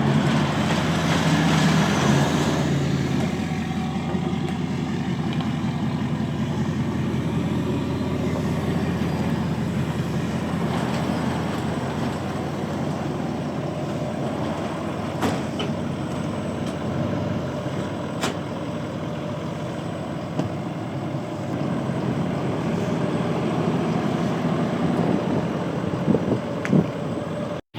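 Ford F350's 6.7 L Power Stroke V8 diesel running steadily just after being brought back to life, a little louder in the first couple of seconds, then settling. The engine had lost prime through a loose feed line to the injector rail, now tightened.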